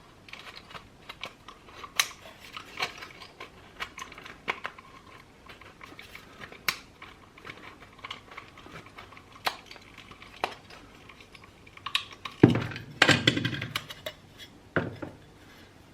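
Scattered clicks, clinks and knocks of small metal parts and tools being handled, with a louder clatter about twelve and a half seconds in.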